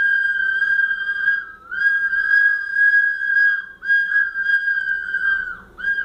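Several children blowing small plastic whistles together: a long held high tone, with some whistles sagging slightly lower in pitch beneath it. It breaks off briefly twice, about a second and a half in and near four seconds, and stops near the end.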